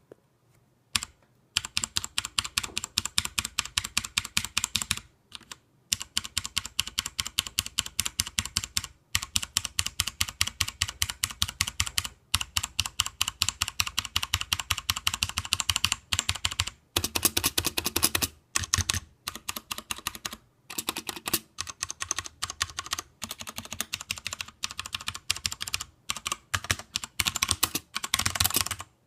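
Fast typing on a mechanical keyboard with Cherry MX Brown switches: a dense run of key clacks in bursts of several seconds, broken by short pauses.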